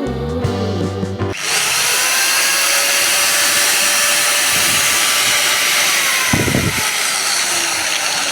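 A 5-inch angle grinder switched on and running steadily at full speed with a high whine, starting about a second in as background music stops.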